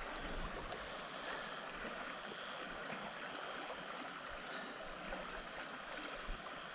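Shallow river running over rocks: a steady, even rush of flowing water.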